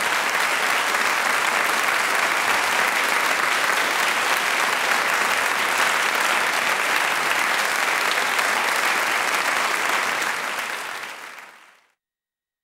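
Concert-hall audience applauding steadily, a dense clapping that fades out over the last two seconds into silence.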